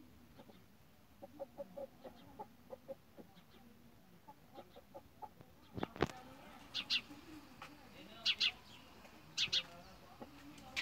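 Hens clucking softly in a few short runs. A sharp knock comes about six seconds in, and after it short high chirps sound in quick pairs, three times.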